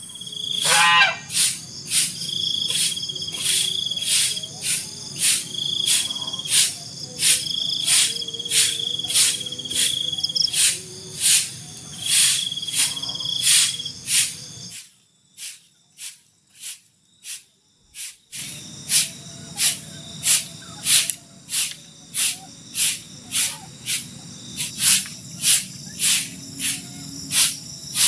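Night insects calling: a loud, sharp chirp repeating about one and a half times a second over a steady high-pitched trilling.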